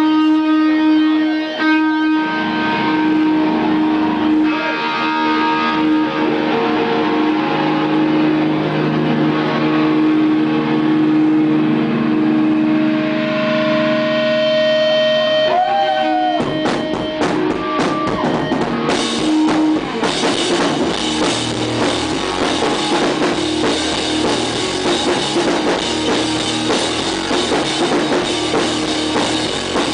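Rock band playing live on electric guitar, bass and drum kit, recorded right beside a large speaker. Held guitar and bass notes ring for roughly the first half, then the drums come in a little past halfway and the full band plays loud to the end.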